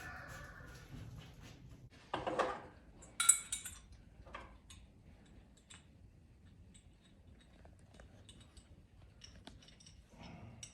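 Scattered light metallic clinks and taps, with a sharp clank about three seconds in; a rooster's crow trails off at the very start.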